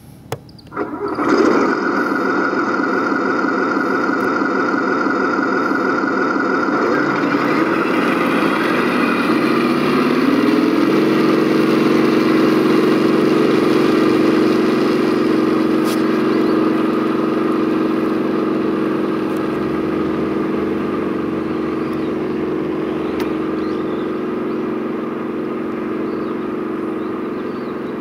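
Tamiya 1/16 Leopard 2A6 RC tank's onboard sound unit playing a simulated tank engine start-up about a second in, then running. The engine note rises over a few seconds and then holds steady as the tank drives off.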